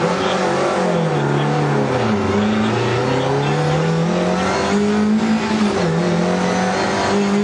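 Rally car engine heard from inside the cabin, accelerating hard down the stage. Its revs fall away about a second in, climb steadily for a few seconds, dip again about six seconds in and climb once more as it pulls through the gears, over steady tyre and road noise.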